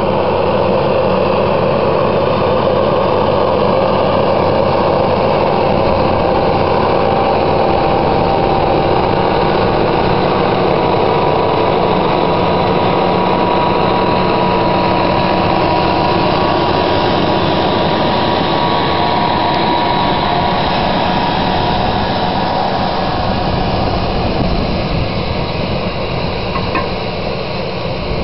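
Case IH Steiger 485 four-wheel-drive tractor's diesel engine running steadily under load as it pulls a seeding air drill and air cart past, with a thin steady high whine over it; the sound eases off slightly near the end as the outfit moves away.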